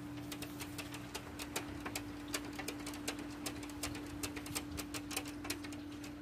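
A corgi's claws tapping and scratching against a glass sliding door as it stands on its hind legs, giving rapid, irregular sharp clicks, roughly five a second, that stop near the end.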